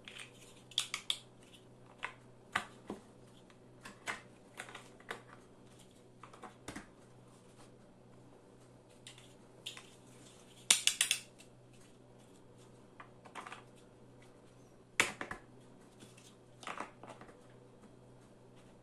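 Large plastic building blocks clicking and clacking as they are pressed onto each other and set down, in irregular sharp clicks, with a loud cluster about eleven seconds in and another strong click about fifteen seconds in.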